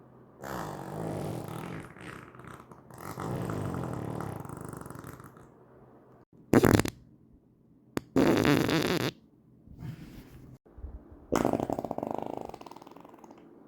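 A run of about six human farts, one after another with short gaps between them. They differ in length: a few are long and drawn out, and one short, loud one comes about halfway through.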